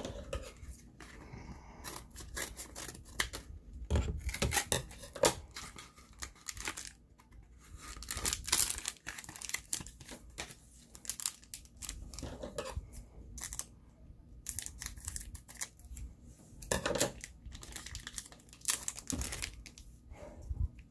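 Bakugan Battle Brawlers trading-card booster pack being torn open and its wrapper crinkled by hand, in irregular bursts of tearing and rustling.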